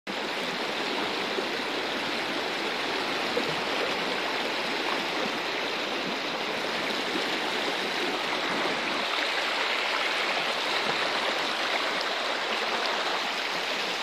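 Shallow river water rushing steadily over rocky riffles and small rapids.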